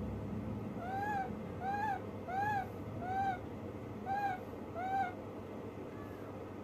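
Baby macaque giving six short, clear coo calls, each rising then falling in pitch, spaced well under a second apart.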